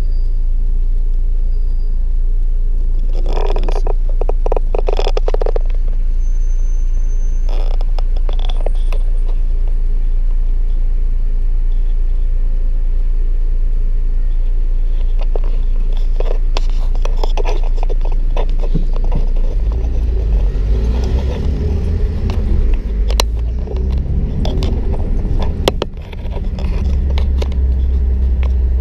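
Car running, heard from inside the cabin: a steady low rumble while stopped, growing heavier about two-thirds of the way through as the car pulls away and drives on. A few brief clusters of clicks and scrapes sound over it.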